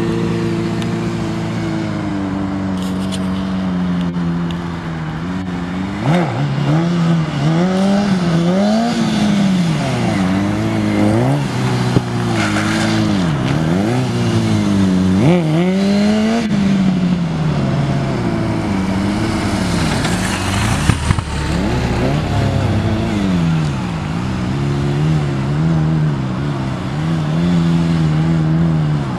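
Sport motorcycle engine revving up and down over and over, its pitch climbing and dropping every second or two as the rider works the throttle through stunt riding.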